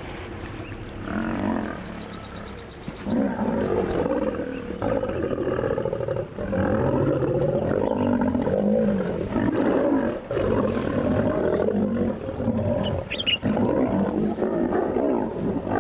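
Lionesses growling as they attack a crocodile. The growling grows louder about three seconds in and stays continuous.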